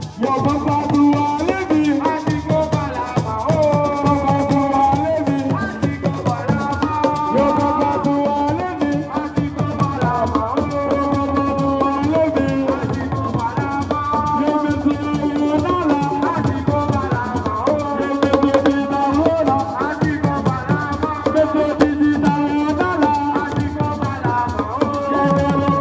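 Assiko-style percussion music: drums and shaker rattles keep a dense steady beat under a wavering melody.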